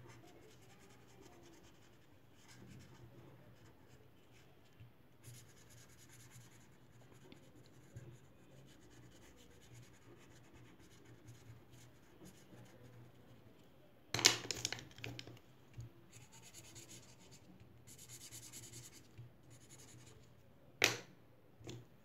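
Felt-tip marker scratching and rubbing on paper as it colours in. A louder clatter lasting about a second comes about two-thirds of the way through, and a single sharp click comes near the end.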